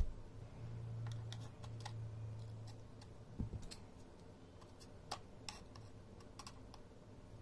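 Scattered small clicks and scrapes as a flat screwdriver pries at the seam of a portable hard drive's enclosure, working its casing apart. A low hum sits under the first few seconds.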